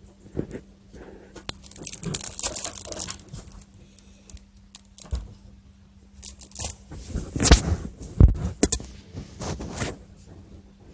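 Packaging rustling and crinkling as items are handled, in irregular bouts, louder and busier about two seconds in and again around seven to eight seconds in, with a couple of sharper knocks.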